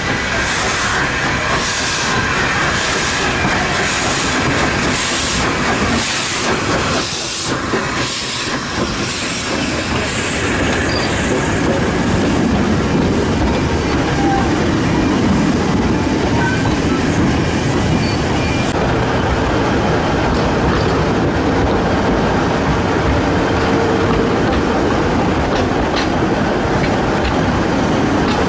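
Narrow-gauge steam locomotive working slowly past, with sharp exhaust beats about twice a second and a thin wheel squeal. The beats fade after about nine seconds and the carriages roll past with a steady rumble and wheel clatter.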